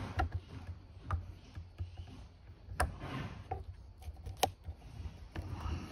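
Handling noise from a camera tripod's legs being adjusted: scattered sharp clicks and knocks with rustling between them. The two loudest clicks come a little under three seconds in and about four and a half seconds in.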